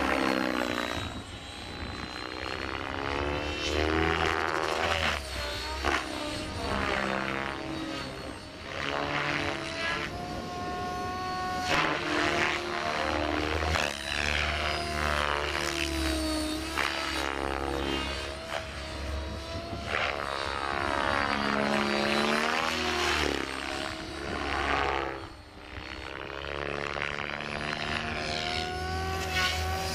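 Blade 700X electric RC helicopter flying aerobatics, its rotor blades and brushless motor whining with a pitch that keeps sweeping up and down as it changes head speed and passes back and forth.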